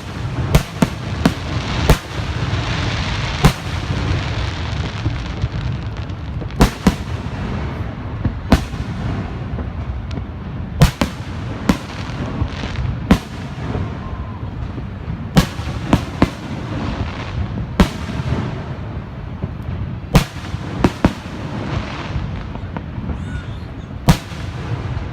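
Fireworks going off in a show: about twenty sharp bangs at irregular intervals, some in quick pairs, over a steady rushing background noise.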